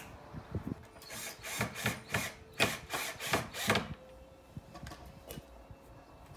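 Cordless drill-driver working into the timber of an old shed panel: a run of short rasping bursts, about three a second, from about a second in until about four seconds in.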